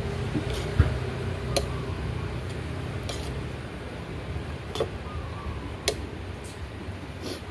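Metal spoon and wooden chopsticks clicking against a noodle bowl while noodles are stirred and lifted, about six separate sharp clinks spread out. A low background rumble of traffic dies away in the first couple of seconds.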